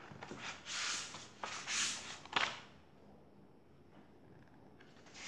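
Pages of a paperback picture book being flipped and handled: several short paper swishes and a couple of light taps in the first two and a half seconds.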